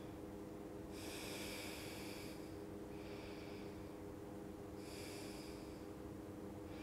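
Slow, steady breathing held through a yoga stretch: three soft rushes of air, each about a second long, with the middle one fainter. A faint steady hum runs underneath.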